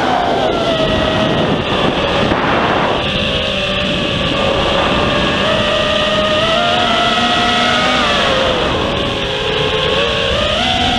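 Radio-controlled model airplane's motor heard from a camera on board: a steady whine whose pitch sags and wavers, dips lower about nine seconds in and climbs again near the end, over the rush of wind on the microphone.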